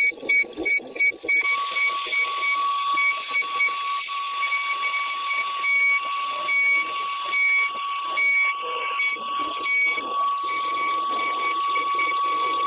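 CNC router spindle running with a steady high-pitched whine over a hiss. A rapid beeping in the first second and a half gives way to the continuous whine.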